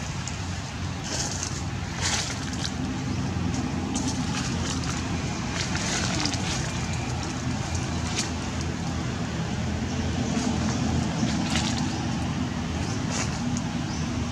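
Steady low hum of a running engine, with scattered short clicks and rustles over it.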